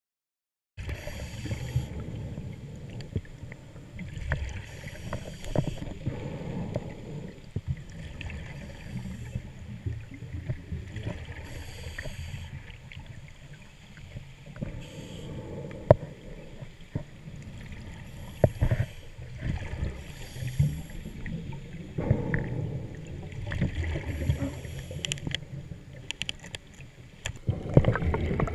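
Underwater sound through a camera housing: a muffled low rumble of water and handling noise with scattered clicks, and short hissing bursts every few seconds from scuba divers breathing out through their regulators.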